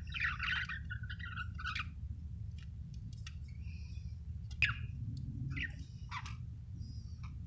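Budgerigar chattering busily for about two seconds, then a few short, separate chirps and squawks with a sharp click about halfway, over a steady low hum.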